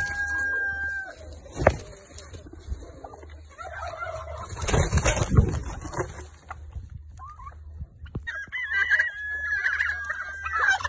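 A rooster crowing with long held calls, at the start and again from about eight seconds in, amid hen clucking. A sharp knock comes about one and a half seconds in, and a burst of rustling around five seconds in.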